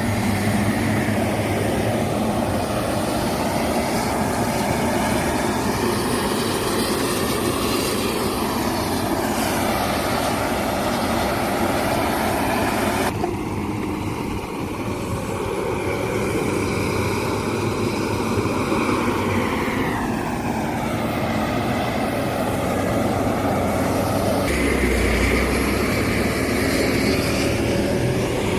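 Heavy diesel machinery running, with engine tones that drop and climb several times as the engines rev and settle under load. The sound changes abruptly twice.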